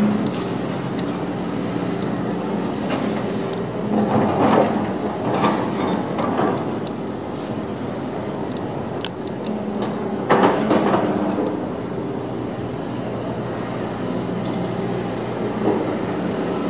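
Diesel engine of a Sumitomo SC500 crawler crane running steadily, with louder bursts of steel chain and hook clanking against steel road plates about four seconds and ten seconds in.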